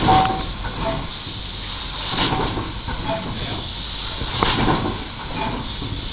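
1868 paddle-steamer steam engine driving a slipway winch: a steady hiss of escaping steam over the running machinery, with a louder surge about every two and a quarter seconds, three times.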